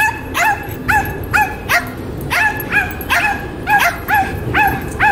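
A dog yapping over and over in a steady string of high-pitched barks, about two or three a second, each one rising and then falling in pitch.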